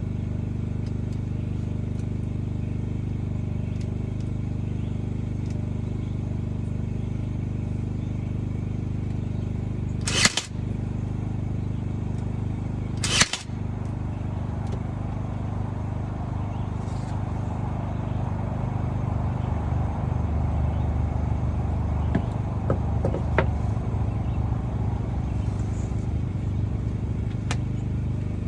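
A nail gun fires twice, about three seconds apart, over a steady low machine hum. Lighter clicks and knocks follow near the end as the frame is handled.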